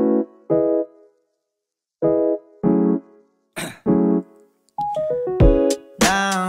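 Music: short electric-piano chords played in pairs, with silent gaps between the pairs, and gliding tones near the end.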